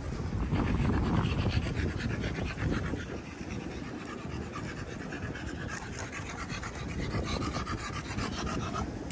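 A dog panting rapidly and evenly, close by, over the rumble of wind on the microphone.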